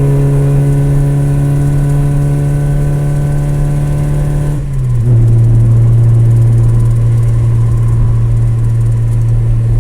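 Race car engine running at a steady high pitch, then a brief drop in loudness about halfway through, after which it settles at a slightly lower steady pitch.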